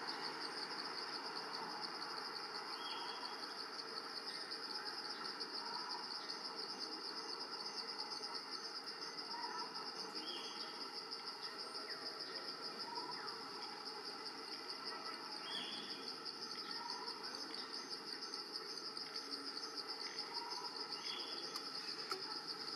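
Steady, finely pulsing high-pitched drone of a forest insect chorus, with short bird calls repeating every few seconds.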